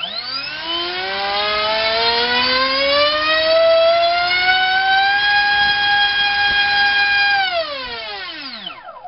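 Turnigy SK3 2839 2700kV brushless motor spinning a 6040 propeller under load: a loud whine that rises in pitch as the throttle is opened over about five seconds, holds steady for a couple of seconds, then falls away as the throttle is closed near the end.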